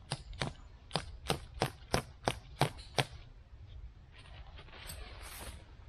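A tent peg being hammered into hard ground: about ten sharp, even strikes, roughly three a second, that stop about three seconds in, then a short rustle.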